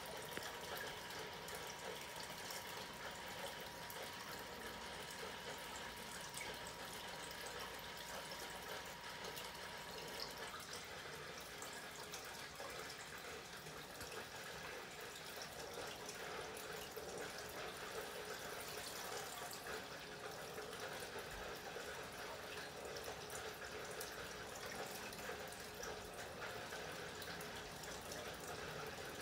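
Steady water ambience, an even watery wash with fine crackling all through, like underwater or aquarium sound. A faint steady tone runs under it and ends about ten seconds in.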